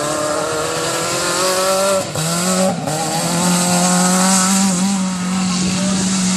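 Autocross car's engine running hard at high revs as it drives the dirt circuit, with a short break about two seconds in where the pitch drops, as at a gear change, before it climbs and holds high again.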